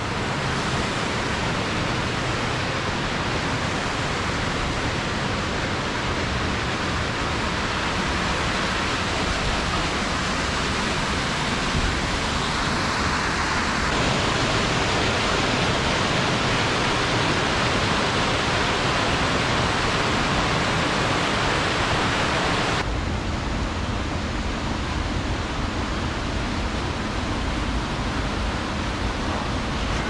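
Menzenschwand waterfall and its stream rushing through the gorge: a loud, steady roar of falling water. Its tone shifts abruptly twice, brighter about halfway through and duller again about three-quarters of the way through.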